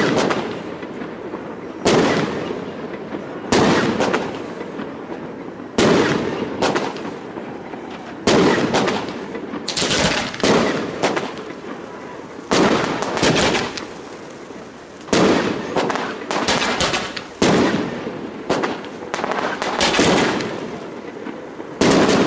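Aerial fireworks display: shells bursting with a sharp bang every second or two, each fading away, with some bursts coming in quick clusters of several reports.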